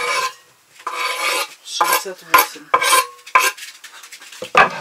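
Knife scraping chopped parsley off a wooden cutting board into a glass bowl, followed by a run of sharp knocks and clinks as the knife and board tap against the bowl and the board.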